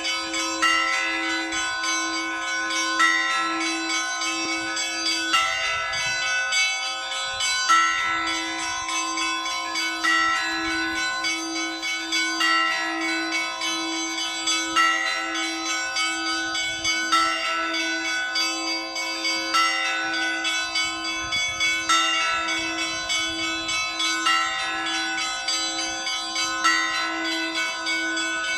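Church bells ringing a continuous peal, the Russian style of bell ringing called zvon. Several bells sound together in a rhythmic pattern, with a brighter strike coming round about every two and a half seconds over the lingering hum of the bells.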